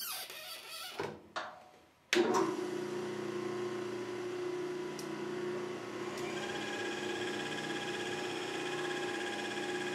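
Performax 16-32 Plus drum sander switched on about two seconds in, after a couple of handling knocks: the drum motor starts suddenly and runs steadily. About six seconds in a higher steady whine joins it, the conveyor feed motor coming up as the speed knob on the new SandSmart controller is turned. This is the machine's test run after the controller upgrade.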